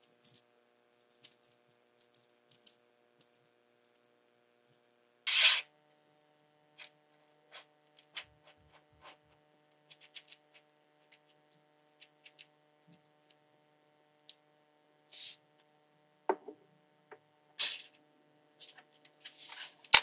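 Small magnetic balls clicking and snapping together as a structure is built ball by ball: scattered sharp clicks, with a few longer, louder bursts, the loudest about five seconds in.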